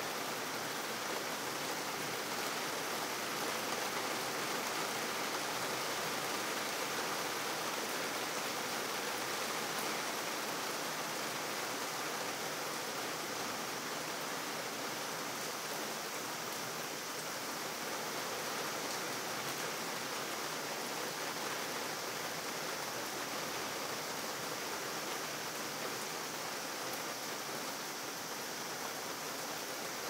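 Steady rain falling on wet pavement: an even, unbroken hiss.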